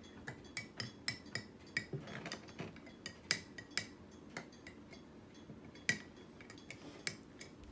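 A spoon stirring borax and water, clinking irregularly against the side of its container, a few sharp clinks a second with a short ring.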